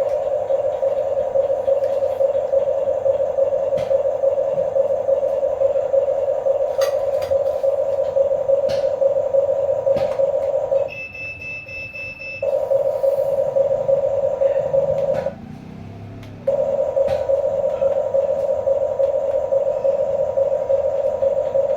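Small electric motor and plastic gearbox of a Huina radio-controlled construction toy whirring steadily, stopping twice for about a second, with a short high beep during the first stop and faint clicks throughout.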